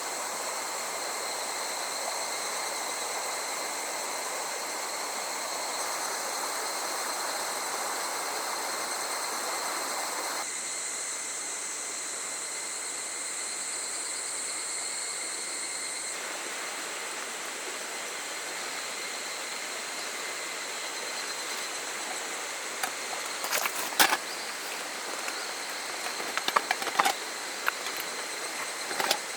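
A small river flowing steadily, with a steady high insect drone above it. In the last few seconds, scattered sharp clicks and knocks come in over the water.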